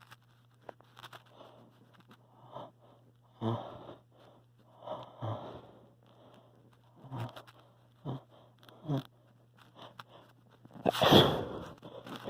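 A person with a head cold hitching, with short catching breaths several seconds apart, some in quick pairs, then one loud sneeze about eleven seconds in.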